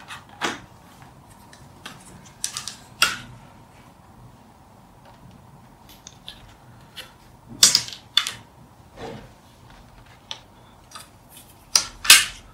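Scattered clicks, taps and knocks of packaging being handled as covers are lifted off plastic trays of sensor modules. They come in loose clusters, the loudest about two-thirds of the way through and just before the end.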